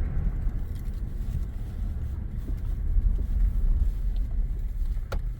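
Steady low rumble of a vehicle driving down the road, with a single sharp click about five seconds in.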